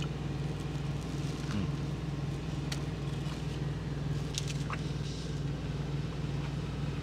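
Steady low hum of an idling diesel truck engine heard inside the cab, with a few faint clicks of chewing.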